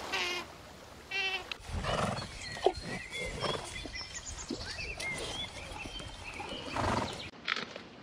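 A short wavering call from a sea otter about a second in. Then horses at pasture, with small birds chirping and a horse twice blowing out a loud, noisy snort, about two seconds in and near the end.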